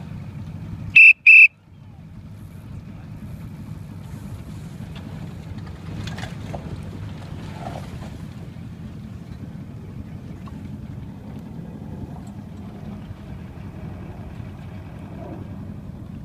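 Two short, loud blasts on a whistle about a second in, over the steady low rumble of the motorboat's engine running.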